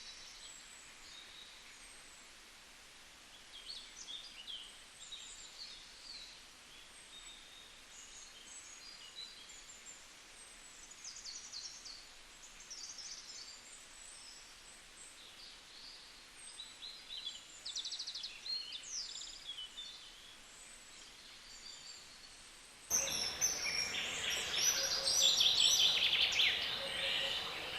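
Birds chirping and calling, short scattered chirps and trills over a faint hiss. About 23 seconds in, the sound jumps to louder, busier chattering with quick repeated notes.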